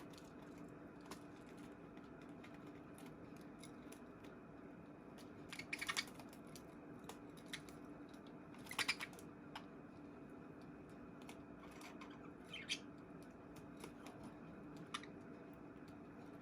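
Baby budgies moving about a cage: scattered light clicks and taps, with three short clusters of rapid, louder clicking, over a faint steady hum.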